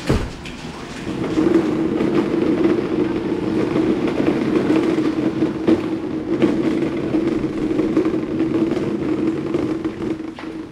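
Small hard wheels of a push cart rumbling steadily as it rolls across a smooth factory floor, after a sharp knock right at the start.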